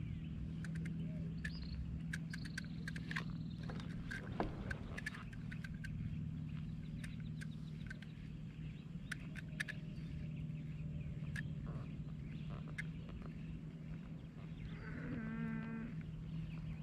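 A steady low hum with many scattered faint clicks and ticks. About fifteen seconds in comes a short animal call with a clear pitch, lasting about a second.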